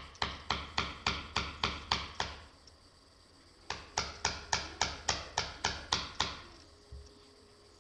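Hammer tapping a screwdriver into an old battery: a quick run of about nine ringing metallic strikes, about three a second, then after a pause of about a second and a half another run of about ten.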